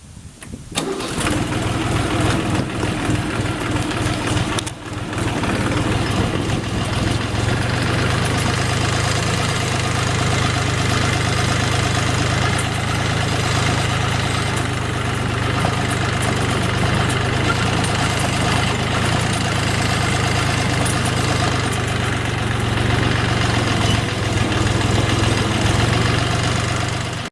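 Tractor engine that comes in about a second in and runs steadily, with a brief dip about five seconds in.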